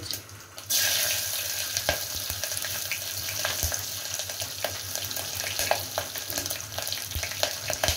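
Green chillies hitting hot mustard oil and tempering spices (fennel, cumin, fenugreek) in a pressure cooker, sizzling with scattered crackles and pops. The sizzle starts suddenly under a second in, as they go into the oil.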